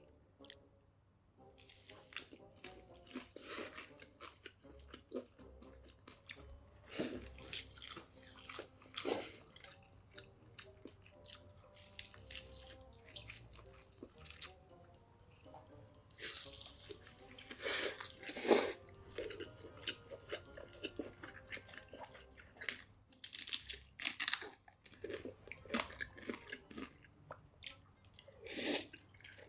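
Close-miked eating: crunchy bites and chewing, with irregular crackles and several louder crunching bursts.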